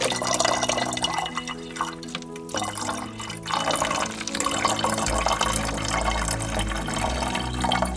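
Apple cider vinegar being poured in a stream into a spray bottle, briefly interrupted about two and a half seconds in. Background music plays underneath.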